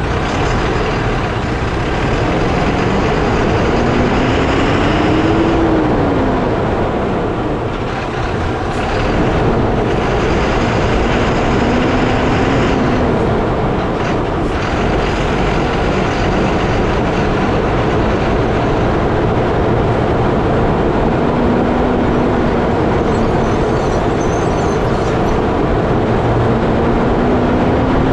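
A moving lorry heard from a camera mounted under its chassis by the front wheel: a loud, steady rumble of tyres on the road, engine and wind, with a low hum that rises and falls in pitch several times.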